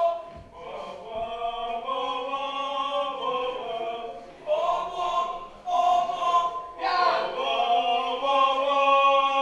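A group of voices singing together in long held notes, broken by short pauses.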